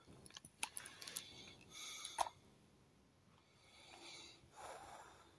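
Quiet breathing with a few soft handling clicks and rustles, the sharpest click about two seconds in.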